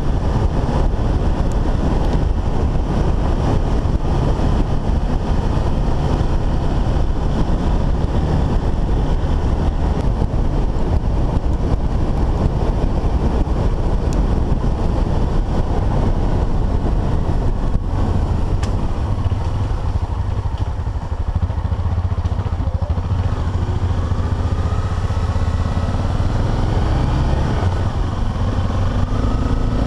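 Single-cylinder dual-sport motorcycle running under way on a dirt road, engine drone mixed with heavy wind and road rumble. In the last third the engine pitch rises and falls a few times.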